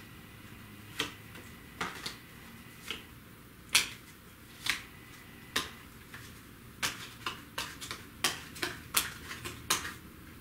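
Playing cards being handled during a card trick: a series of sharp card snaps and clicks, about one a second at first, then coming quickly in the last few seconds.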